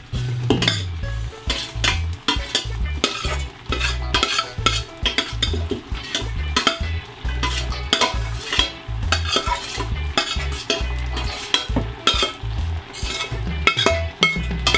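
Metal spoon scraping and knocking against stainless steel pots in quick, irregular strokes as chopped onions and tomatoes are spooned into a pot of lamb frying in oil, with sizzling underneath.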